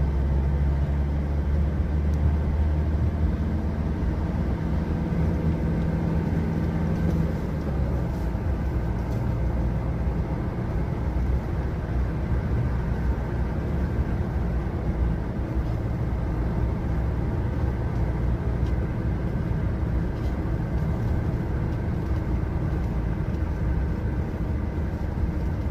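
A vehicle driving along a road: a steady low engine hum with road rumble, the engine note shifting slightly about seven seconds in.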